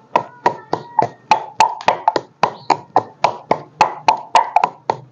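Steady rapid knocking, about four strokes a second, from food being worked by hand in the kitchen, with a faint ringing tone underneath.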